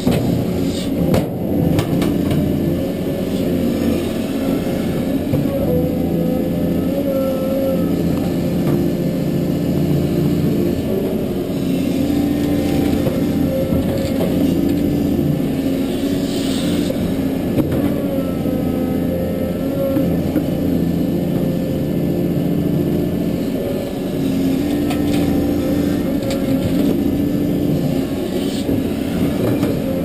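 Caterpillar 320D excavator's six-cylinder diesel engine running under load, its pitch shifting as the hydraulics work the boom, swing and bucket, with a faint whine that rises and falls several times. About a second in there is a brief clatter as the bucket empties soil and rock into the dump truck's bed.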